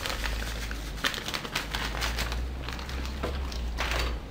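Plastic sugar bag crinkling in the hand, a run of irregular crackles, as the last of the sugar is shaken out into the pot and the bag is put down.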